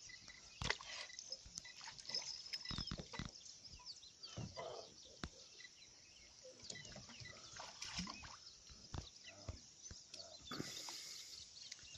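Scattered knocks, light splashes and handling noises as a catfish is worked at the side of a small fibreglass boat.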